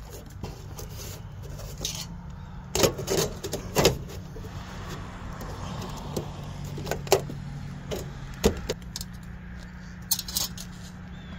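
Aluminum gutter guard being handled and pressed into a gutter: scattered light metallic clicks and clanks, several in quick groups, over a steady low hum.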